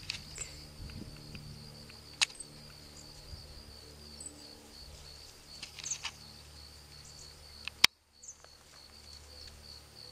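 Insects trilling steadily in a high, pulsing tone, with a few short bird chirps and scattered sharp clicks. A loud click comes about eight seconds in, followed by a brief dropout.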